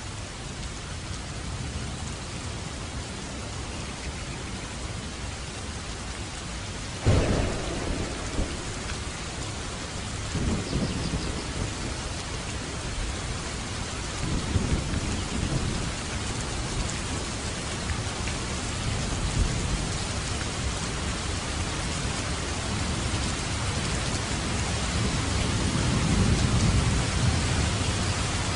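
Steady rainfall with thunder: a sudden sharp thunderclap about seven seconds in, then several low rolling rumbles later on.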